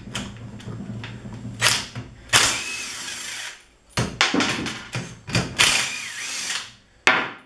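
Impact wrench running in bursts as it undoes the rear cover bolts of a BMW E36 differential. There are two runs of about a second each among several short blips.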